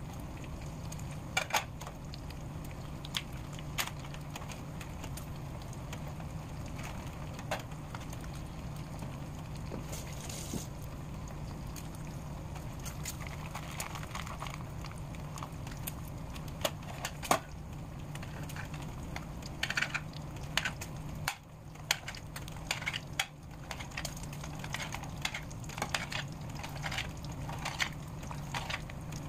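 Bacon sizzling in a frying pan, a steady hiss dotted with sharp pops and crackles over a constant low hum. In the second half, quick clicks and taps come thicker as a knife slices sausage on a plate.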